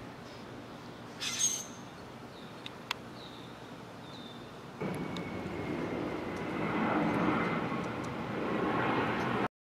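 Outdoor background noise with a short sharp sound about a second in and a few faint chirps. From about five seconds in a louder, steady rush of noise with a faint thin tone takes over, then cuts off suddenly near the end.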